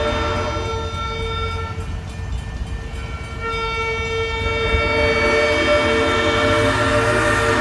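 Locomotive horn sounding in long blasts of several steady notes at once. One blast ends about two seconds in, and a second, longer one starts about a second later. A low rumble from the locomotive runs underneath.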